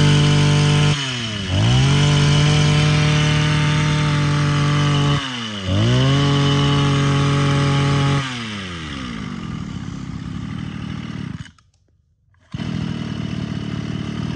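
Mitsubishi TL231 23cc two-stroke brush-cutter engine revved hard. It drops back and climbs to high speed again twice, then settles to idle. After about a second's break it is idling steadily again near the end.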